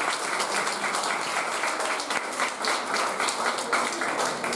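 A small group of people applauding, a dense patter of many hands clapping.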